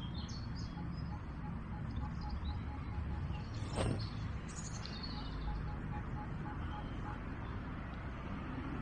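Small birds chirping in short high calls, a few near the start and again around the middle, over a steady low rumble. A faint run of evenly spaced short beeps sounds through most of the stretch.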